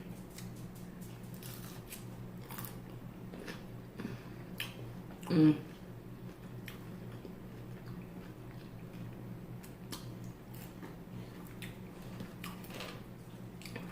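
Close-up chewing and biting of a crispy fried chicken sandwich, with scattered short wet clicks and crunches. A hummed 'mm' of enjoyment about five seconds in is the loudest sound, over a steady low electrical hum.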